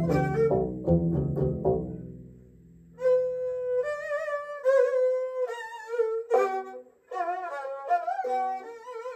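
Plucked string notes over a low drone die away over the first two seconds. After a short pause, a bowed string instrument held upright on the lap plays a slow, wavering melody with vibrato.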